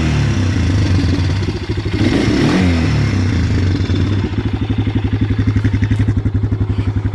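Polaris Phoenix 200 ATV's single-cylinder four-stroke engine, revved once about two seconds in and then settling into a steady, pulsing idle that its owner calls a little rough.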